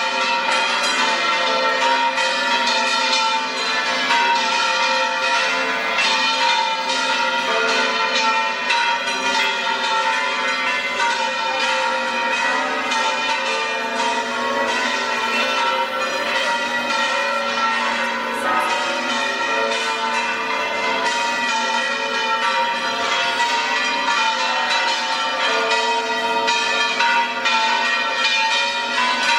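Seville Cathedral's bells pealing continuously: many bells ringing at once in a dense, overlapping clangour, struck again and again without a pause.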